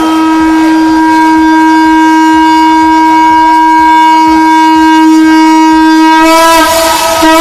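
Conch shell (shankh) blown in one long, steady note, which breaks off briefly near the end before a fresh blast begins.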